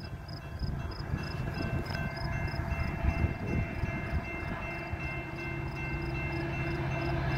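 Railroad crossing bell ringing steadily and rapidly. Under it, an approaching train's horn sounds steadily and grows louder over the last couple of seconds, over a low rumble.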